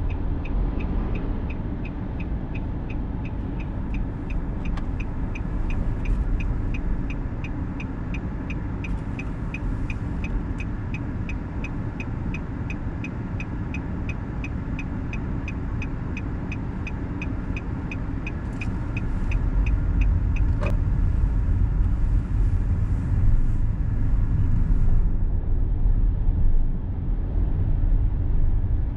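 A car driving on an expressway: a steady low rumble of engine and tyres on the road. For most of the first twenty seconds a high, even tick repeats about twice a second. Near the end the rumble grows louder, with one sharp knock.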